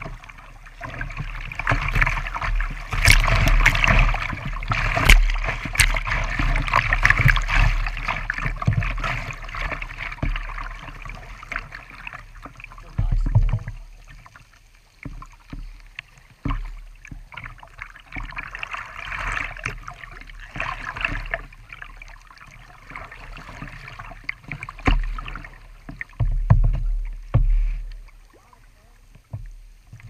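Fast creek water rushing and splashing around a kayak's plastic bow as it runs a riffle, loudest in the first dozen seconds. After that comes quieter moving water with scattered splashes.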